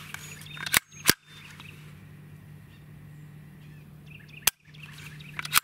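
Sharp metallic clicks from a Ruger PC Carbine's trigger group and action being worked dry on an empty chamber: two clicks about a second in, a third about four and a half seconds in, and a fourth at the very end.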